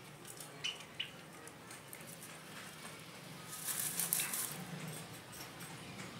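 Caged black francolin moving on a sandy floor, without calling: two light taps about a second in, then a brief burst of rustling and scratching a little past halfway as the bird shifts about.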